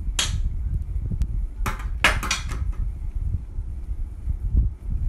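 Stainless-steel sink tap parts clinking and scraping as the handle is worked back onto the tap body. There is one short scrape just after the start, then a quick cluster of several about two seconds in, over a low steady rumble.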